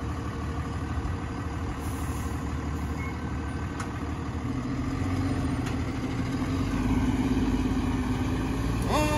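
Fire engine's diesel engine running as the truck pulls away, getting louder, its note rising a little partway through. Right at the end its siren starts winding up.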